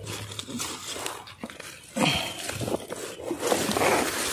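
Leaves and stems rustling and brushing against the camera as someone pushes through dense vegetation on foot, with scattered footsteps; it gets louder about two seconds in.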